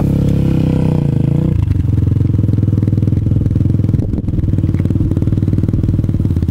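Yamaha YZ250F's single-cylinder four-stroke engine running at a steady idle, with an even, rapid exhaust beat. The beat grows fuller and a little louder about one and a half seconds in.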